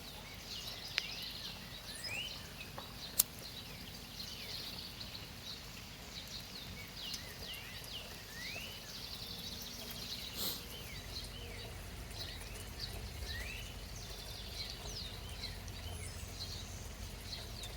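Birds chirping over the steady hiss of rain, with two sharp clicks a few seconds in, the second one the loudest sound.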